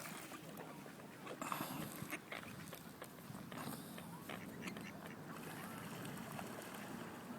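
Ducks giving a few faint, scattered quacks.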